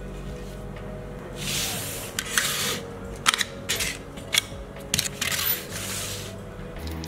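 Hard plastic model-car parts being handled and set down: a series of sharp clicks and knocks mixed with short scraping, sliding sounds, over steady background music.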